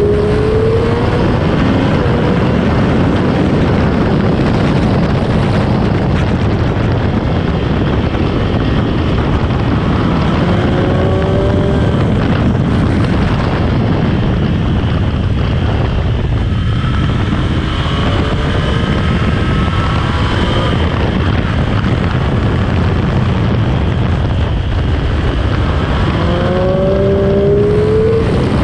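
Sport motorcycle on stock exhaust, ridden hard around a race track and heard onboard: the engine note climbs in pitch several times as it accelerates, over a constant loud rush of noise.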